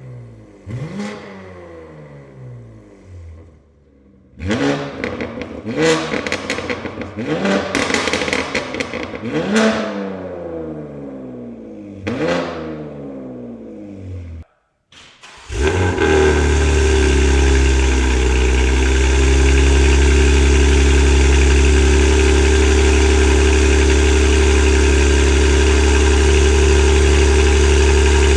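BMW G80 M3's S58 twin-turbo inline-six, fitted with a titanium equal-length X-pipe catback and catless downpipes, revved in a series of free-rev blips that rise and fall in pitch. After a brief break it settles into a steady, loud idle.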